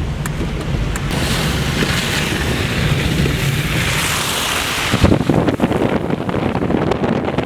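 Road noise from a car driving on a snowy, slushy street: a hiss from about one to five seconds in, then an uneven low rumble.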